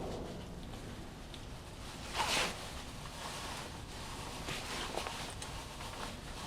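Brief rustling and scraping of hands handling things, with one louder swish about two seconds in and a few faint clicks later.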